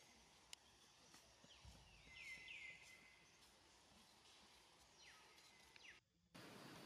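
Faint outdoor ambience with a small bird giving short chirps that sweep down in pitch, in pairs about a second and two and a half seconds in and again near the end. The sound cuts out for a moment just before the end and comes back as a louder hiss.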